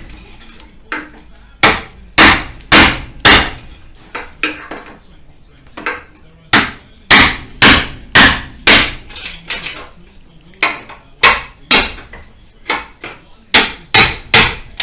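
Heavy mallet hammering a cold chisel through the spot welds of a rusted steel front panel. The blows are sharp metallic strikes, about two a second, coming in bursts of three to five with short pauses between.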